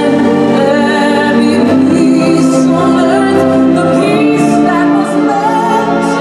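Orchestral show music with a woman singing long, held notes over it, some with a clear vibrato.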